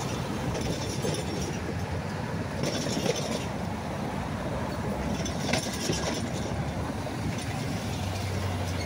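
Freight cars of a manifest train rolling past, with a steady rumble of wheels on rail. Short high wheel squeals and clinks come and go, and a low steady hum comes in near the end.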